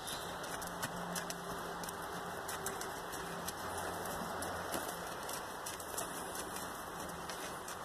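Horse walking on loose sand: irregular soft crunches and clicks of hooves over a steady outdoor hiss.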